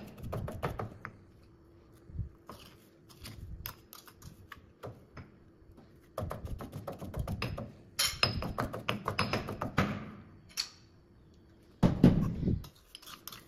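Stone pestle pounding fish and curry paste in a granite mortar: runs of quick dull knocks with pauses between them. A heavier thump comes about twelve seconds in as the mortar is set down on the stainless steel drainboard.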